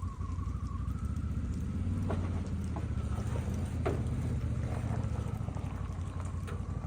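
A vehicle running, heard as a steady low rumble with a faint wavering whine and a few light clicks and taps.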